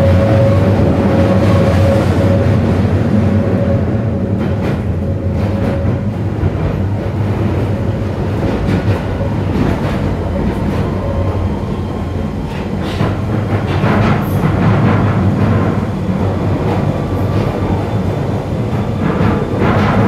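Waterloo & City line 1992 tube stock train running through its tunnel, heard from inside the carriage: a loud, steady rumble with a whine that fades over the first few seconds. Scattered sharp knocks of the wheels over the rails are heard later.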